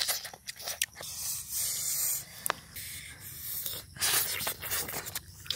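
Close-up eating sounds of cooked eel: flesh and crisp skin being pulled apart, bitten and chewed, heard as quick sharp crackles and smacks over a steady hiss.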